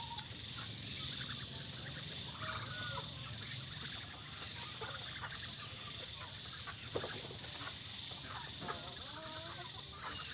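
Chickens clucking on and off, short scattered calls over a steady high hiss.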